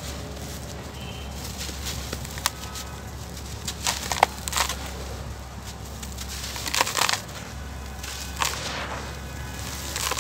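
Dry, dusty dirt lumps crumbled and crushed by bare hands in a plastic tub: gritty crunching with grains and dust falling, in irregular bursts.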